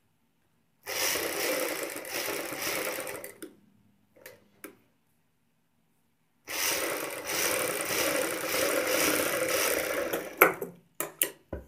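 Black domestic sewing machine running in two stretches of stitching, about two and a half and four seconds long, with a pause between. A few short clicks come near the end.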